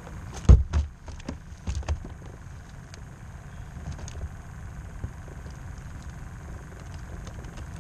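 A few sharp knocks and thumps as gear is handled aboard a plastic fishing kayak, the loudest about half a second in, followed by lighter scattered taps over a steady low rumble.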